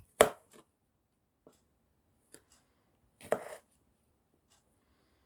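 Kitchen knife chopping through eggplant onto a cutting board: one sharp chop a fraction of a second in, a few light taps, then another chop with a short scrape a little over three seconds in.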